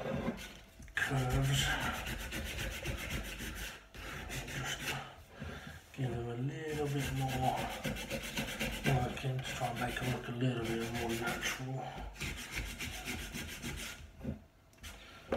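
Sandpaper rubbed by hand on wood: fast back-and-forth sanding strokes in several runs, broken by short pauses.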